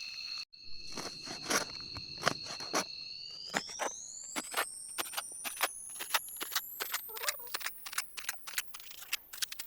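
Crickets chirring steadily over irregular crackling pops from a wood cooking fire. From about three seconds in, the insects' pitch rises smoothly and steeply while the crackles come faster, as the audio is sped up.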